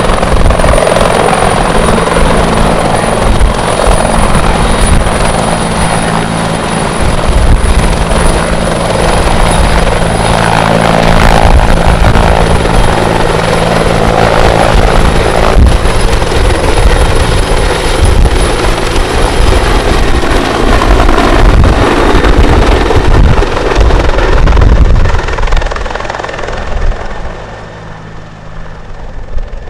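Firefighting helicopter with a slung water bucket hovering low over water, then flying off: loud steady rotor noise with a high turbine whine that fades over the last few seconds as it moves away.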